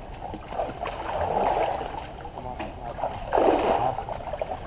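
Muddy pond water sloshing and splashing as people wade through it waist-deep, with two louder surges of sloshing, about a second in and again past the three-second mark.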